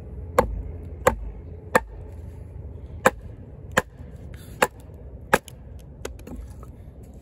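Kobalt 14-inch camp axe splitting a stick lengthwise on a chopping stump, the axe with the stick on its bit knocked down against the wood again and again: about eight sharp wooden knocks, each under a second apart.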